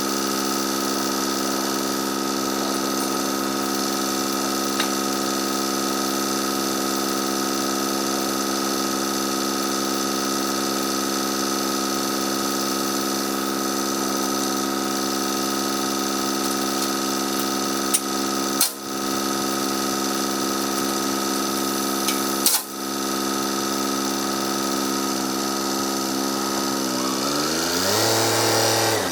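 Tractor engine running at a steady speed, with two short breaks in the sound, then revving up near the end before it cuts off.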